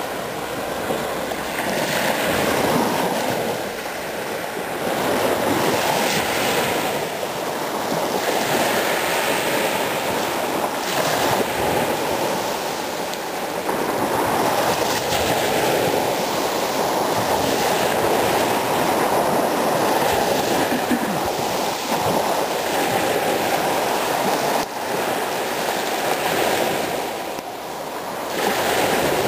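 Small waves washing up and back over a sandy beach at the water's edge: a steady rush of surf that swells and eases every few seconds.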